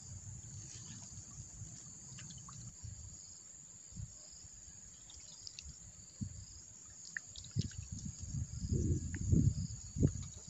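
Insects chirring steadily, with scattered small drips and trickles of water. Low rumbling surges come in over the last few seconds.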